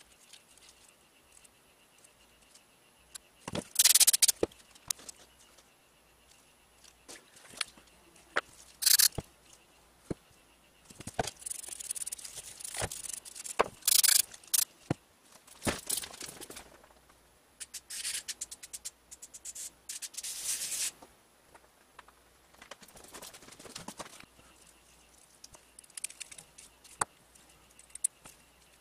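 Aerosol carburetor cleaner sprayed in repeated short hissing bursts into the passages of a small generator carburetor, one longer burst about 11 seconds in. Between sprays there are sharp clicks and taps of the carburetor and tools being handled.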